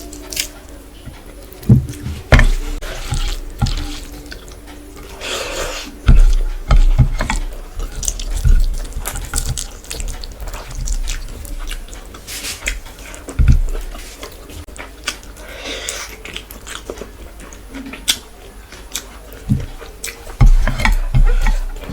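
Close-miked wet eating sounds: chewing and mouth smacking on rice with chicken curry and gravy, with irregular clicks, low thumps and a few longer wet slurping swells.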